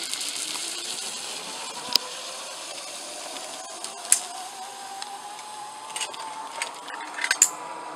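Zip line trolley pulley running down the steel cable: a thin whine that rises slowly in pitch as the rider picks up speed, over a steady hiss. A few sharp clicks come through it, the loudest about two, four, six and seven and a half seconds in.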